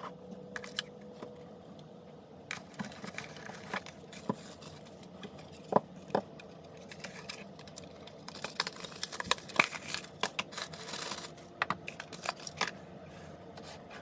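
Unboxing handling noise: cardboard box parts and a cardboard insert being lifted, slid and set down on a table, with scattered taps and clicks. A stretch of papery rustling comes a few seconds before the end.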